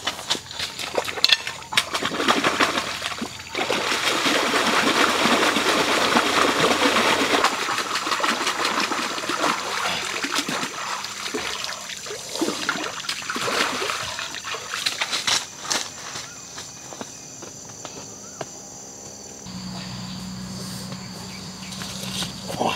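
Water splashing and trickling as a turtle is sloshed and rinsed in a shallow river, loudest a few seconds in, with footsteps crunching on river stones at the start. A steady low hum comes in near the end.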